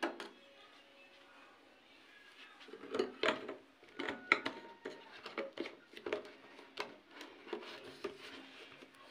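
Plastic laundry-product bottles and tubs being handled: a couple of sharp clicks right at the start, then, from about three seconds in, a busy run of light plastic clicks and knocks.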